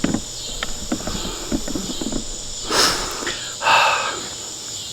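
Steady high-pitched insect chorus of crickets or cicadas, with scattered small clicks and knocks and two short rushes of noise a few seconds in.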